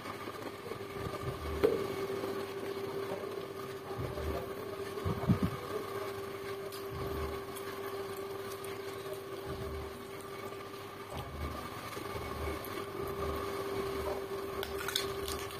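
A steady electrical hum, like a fan or appliance running in the room, with faint low thumps and small clicks of someone eating by hand and chewing.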